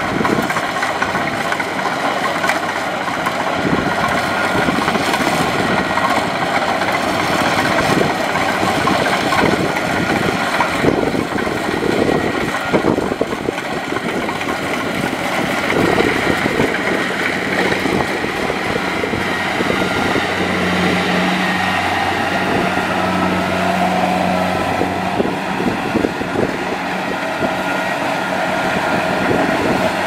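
Kubota DC-70 combine harvester running steadily under load as it cuts rice: engine noise with the clatter of the cutting and threshing gear, with a steady low hum standing out in the second half.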